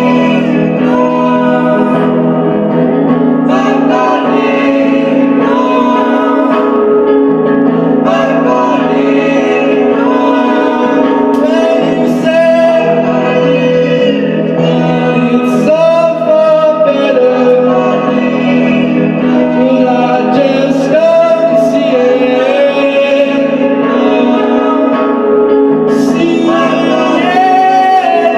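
Music with singing: wavering sung melody lines over a steady low drone, continuous throughout.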